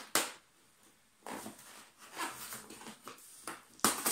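Cardboard shipping box being cut and torn open by hand: a few short scraping tears, the loudest just after the start and near the end.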